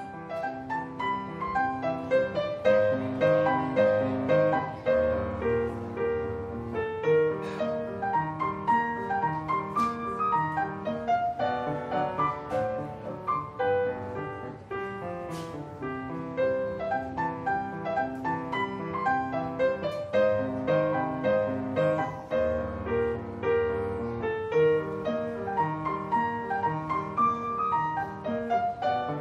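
Solo piano music: a melody over a steady, evenly struck accompaniment, its phrases recurring.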